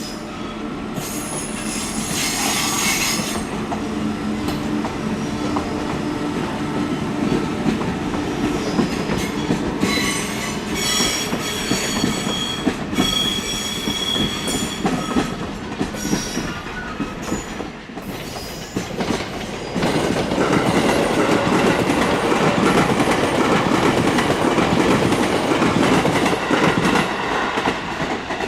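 Train running along the rails, with a high-pitched wheel squeal in the middle and the rolling noise growing louder about two-thirds of the way through.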